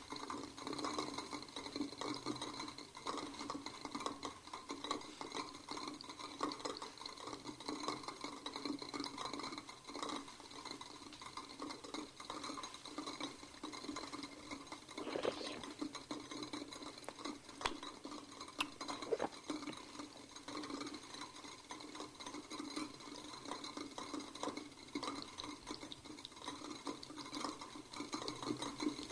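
A person tasting coffee: slurping it from a cup and swishing it noisily around the mouth, in a wet, scrubbing, irregular run of sounds.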